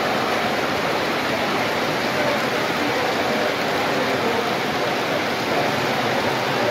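A long O-gauge model train rolling past on three-rail track: a steady rushing noise of wheels and motors.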